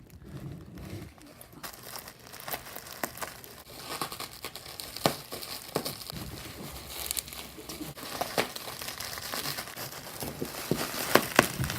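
Packaging crinkling and rustling, with scattered sharp clicks and scrapes, as a tightly packed smoke alarm is worked out of its box.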